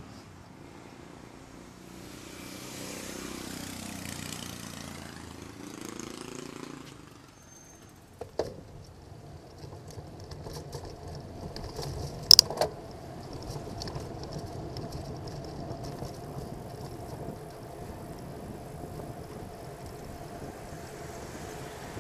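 Road and traffic noise picked up by a bicycle-mounted camera riding through city streets: a vehicle passes in the first few seconds, sharp knocks come about eight and twelve seconds in (the second the loudest sound), and a steady traffic hum follows.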